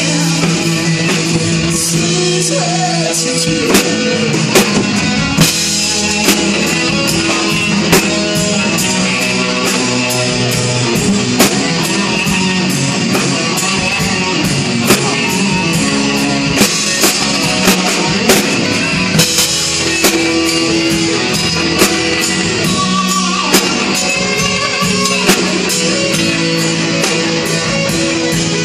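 Live rock band playing: electric guitar, bass guitar and drum kit under sung vocals, with a steady drum beat.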